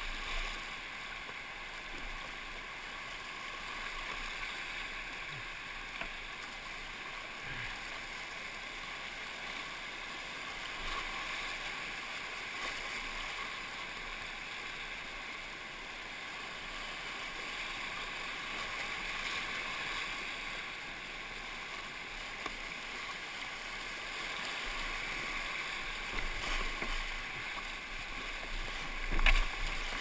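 Steady rush of a rocky whitewater rapid heard from a kayak running it, with a few small clicks and a sudden loud hit about a second before the end.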